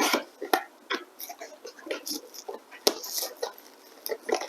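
Packaging being handled and opened: a series of sharp clicks and light knocks with short rustles of box and wrapping as a box of PC case fans is unpacked.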